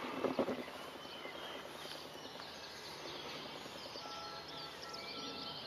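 Birds chirping and singing over quiet open-air background noise, with a few soft knocks in the first half second.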